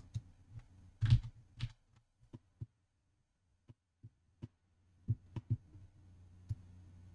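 Scattered, irregular clicks and taps of a computer mouse and keyboard, about a dozen, the heaviest a low-thudding knock about a second in. A faint low hum sits underneath and drops out for a few seconds in the middle.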